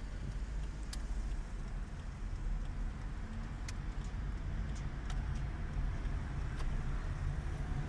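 Steady low engine and road rumble of a car driving slowly, heard from inside the cabin, with a few scattered sharp clicks.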